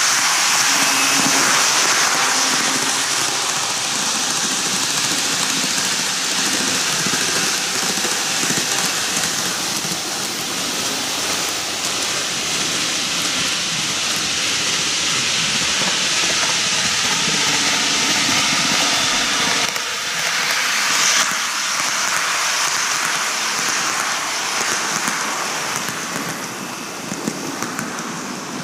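N-gauge model trains, a Kintetsu 80000 series Hinotori and a 23000 series Ise-Shima Liner, running round TOMIX cant track: a steady hiss and rumble of the wheels rolling on the rails.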